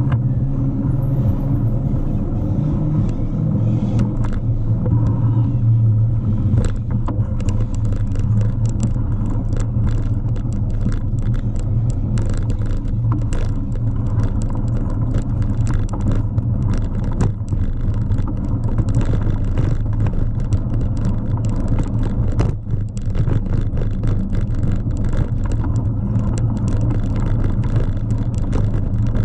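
Bicycle riding at speed, heard through a bike-mounted camera: a steady low rumble of tyres and wind. From about seven seconds in there is a rapid, irregular clatter of clicks as the tyres roll over the timber boardwalk planks.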